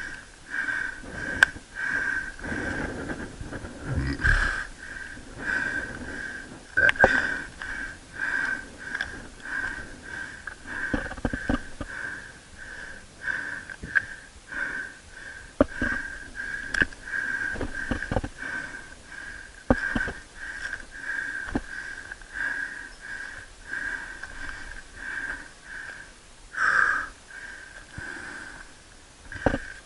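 A climber's heavy, rhythmic breathing while walking uphill, at about one and a half breaths a second. Occasional sharp knocks are heard along with it.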